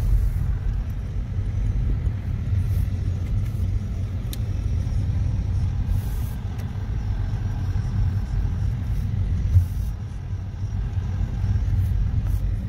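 Car driving slowly, heard from inside the cabin: a steady low rumble of engine and tyres, with one short knock about three-quarters of the way through.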